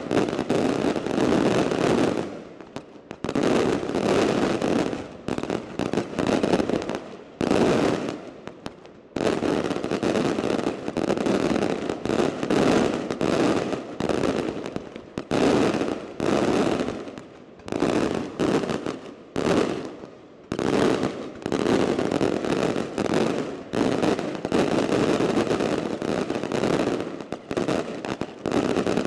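Daylight fireworks: aerial shells bursting overhead in a rapid, almost unbroken barrage of loud bangs, with only brief lulls between volleys.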